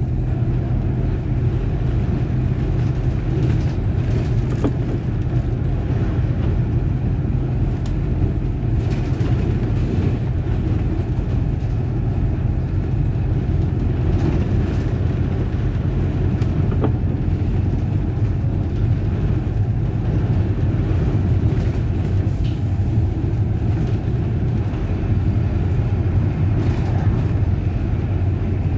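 City bus running along the road, heard from on board: a steady low engine and road rumble with a few faint rattles.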